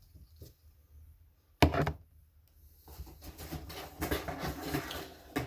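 A sharp knock about one and a half seconds in, then a few seconds of rustling and crinkling as packaging and items from the unboxed box are handled.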